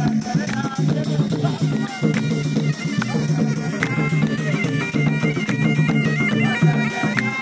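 Traditional Gulf folk music: a bagpipe plays a stepwise melody over a steady drone while hand drums beat.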